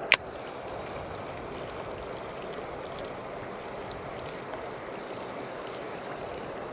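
Steady rushing of flowing river water, with one sharp click just after the start.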